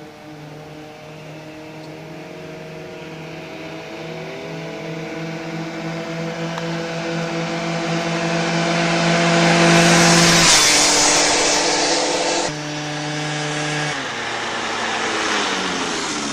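Two-stroke scooter engine held at high revs, a steady buzz that grows louder for the first ten seconds or so and then drops a little in pitch. Near the end the engine note glides down in pitch as the revs fall.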